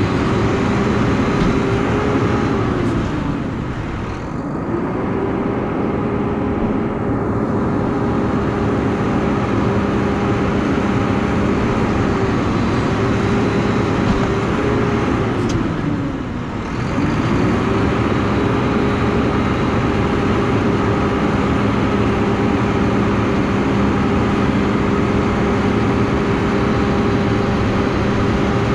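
Front-end loader garbage truck's engine running steadily at a raised speed. About three seconds in and again about fifteen seconds in, it drops in speed and then climbs back up a couple of seconds later.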